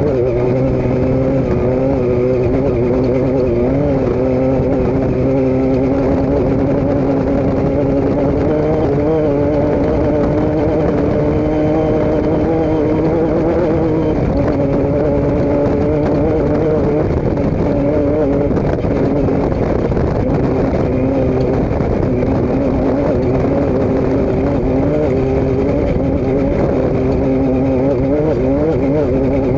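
A motor vehicle's engine running steadily, its pitch drifting slightly up and down.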